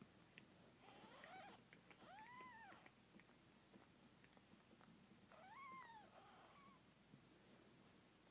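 A cat meowing faintly, three drawn-out calls that each rise and then fall in pitch, the last one about five and a half seconds in.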